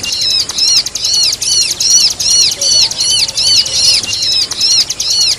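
Bar-winged prinia (ciblek) calling: a rapid, unbroken string of high, arched chirps, about three a second, keeping an even rhythm.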